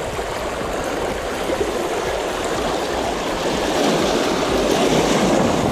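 Small waves washing and splashing over rocks and cobbles at the water's edge: a steady rushing of water that builds a little toward the end.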